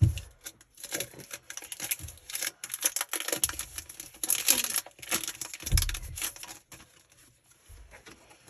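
Crinkling and tearing of a Pokémon booster pack's foil wrapper as it is ripped open and the cards are handled, in irregular bursts. There are a couple of dull bumps, one at the start and one about six seconds in, and it goes quieter near the end.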